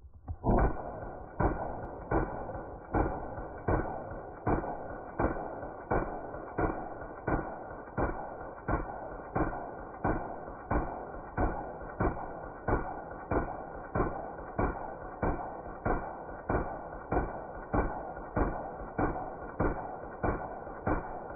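Cobalt Kinetics 12.5-inch rifle firing on full auto, played back slowed down. It comes out as an even string of deep, muffled shots, a little more than one a second, each with a short ringing tail.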